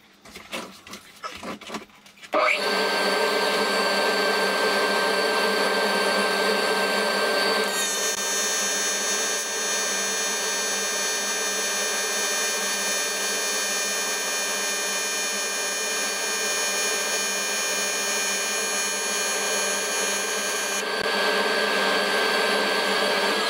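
AC TIG welding arc on 6 mm aluminium plate, struck after a few faint clicks about two and a half seconds in, then buzzing steadily as the butt seam is welded.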